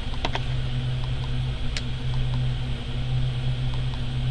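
Steady low electrical or mechanical hum, with a few light clicks of pens being handled and set into a plastic box insert, two just after the start and one a little under two seconds in.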